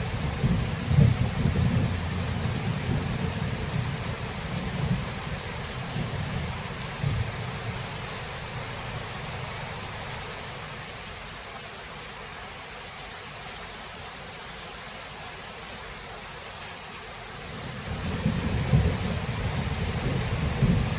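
Thunderstorm: steady rain with rolling thunder. A deep rumble fades away over the first several seconds, and another roll of thunder builds near the end.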